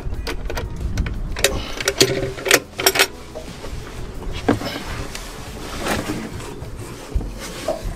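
A cockpit seat locker lid on a sailing yacht being handled and lifted open: a series of clicks and knocks from the lid and its hinges, the sharpest in the first few seconds, over a low steady rumble.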